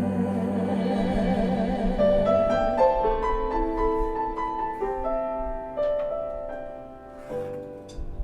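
Live song ending: a held note with vibrato over a chord fades in the first two seconds, then a solo piano plays slow single notes and settles on a final chord near the end.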